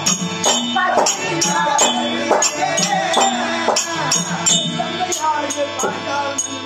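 Therukoothu stage accompaniment: a harmonium holding steady notes over a drum beating a regular rhythm.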